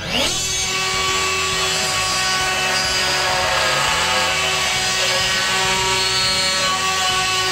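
Electric plunge router starting up, its whine rising quickly, then running steadily as it cuts a concealed-hinge recess into the wooden door edge through a template.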